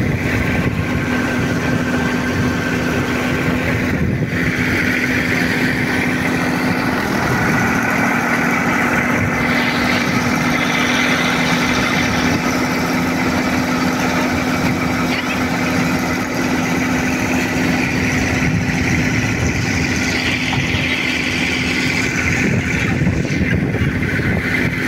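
Tractor engine running steadily under load, driving the belt-driven capstan winch that hauls in the seine net rope, with a constant low hum.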